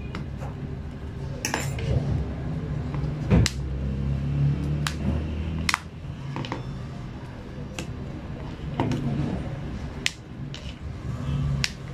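Irregular sharp clicks and taps, about a dozen in all, from a thin prying tool and fingers working the edges of a Samsung Galaxy A20s with shattered screen glass, over a steady low hum.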